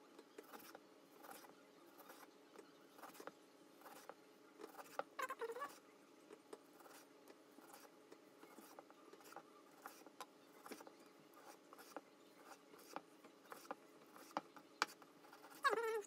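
Kitchen knife slicing raw sea bass fillet on a plastic cutting board: faint, irregular light ticks and taps of the blade on the board and the wet flesh being handled. A brief wavering pitched sound comes about five seconds in, and a louder one near the end.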